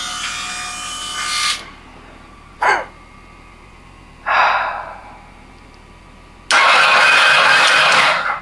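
Electric starter of a Ducati 998 turbo engine spinning the engine over in three tries: a short blip, a brief spin that winds down, then about two seconds of steady cranking, the loudest part. The engine does not fire. The starter gear catching and turning the engine shows that the replaced driving wheel now engages it. A steady electric buzz comes first and stops after about a second and a half.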